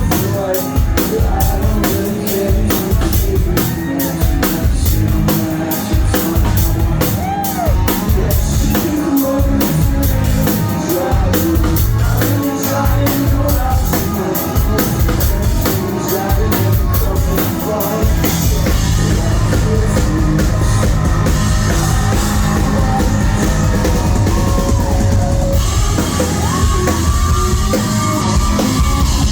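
A live rock band playing loud through a phone's microphone: busy drum kit hits and distorted guitars, with a voice singing at times. About two-thirds of the way in, the drumming gives way to a steadier wash of cymbals and guitar.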